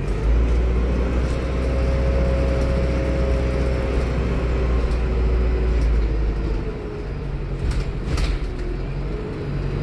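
Alexander Dennis Enviro400 MMC bus engine heard from inside the lower deck, running loud under load with a deep drone and a faint whine, then easing off about seven seconds in. A couple of sharp clicks or rattles come shortly after.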